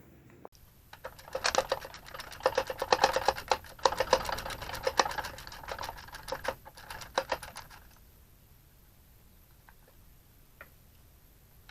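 Ratchet wrench clicking in a rapid, uneven rattle as a 15 mm caliper bracket bolt is turned out, stopping about eight seconds in.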